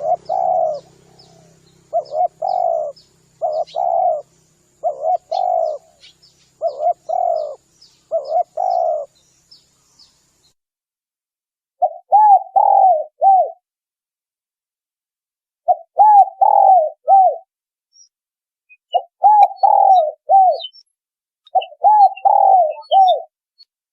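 Spotted dove (tekukur) cooing as a hunting lure call. Short paired coos come about once a second for the first nine seconds, with faint high chirps of a small bird above them. After a pause of about two seconds come longer phrases of three to four coo notes every three to four seconds.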